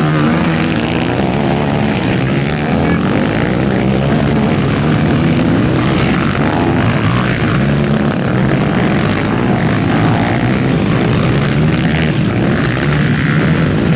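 Several racing quad engines revving hard together in a pack, their pitches wavering up and down as the riders work the throttles close by.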